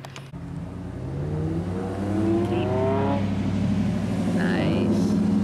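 A pickup truck's engine accelerating along the road, its pitch rising over the first few seconds, then running steady as it grows louder.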